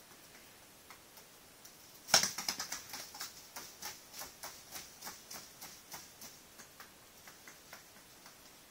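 Young common gull's feet clicking on a hard floor as it walks: a sharp click about two seconds in, a quick run of clicks, then slower, steady clicks about three a second that fade out.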